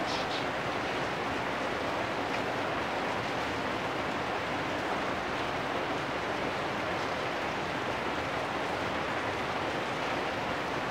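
Steady rain falling on corrugated metal roofs and a wet street, an even hiss that keeps the same level throughout, with a few faint ticks.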